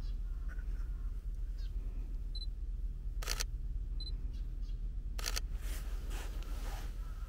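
Sony a7III camera giving a short high beep as focus locks, its shutter clacking about a second later, then the same again: two beeps and two shutter releases, over a low steady rumble.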